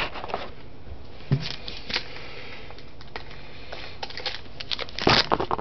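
Wrapped trading card packs being picked up and handled, with scattered rustling, a soft knock about a second in, and a louder flurry of rustling near the end.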